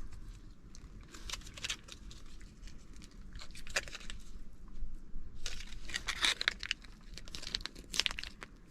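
MRE cheese spread packet being torn open and squeezed out, its packaging crinkling and rustling in irregular bursts, busiest in the second half.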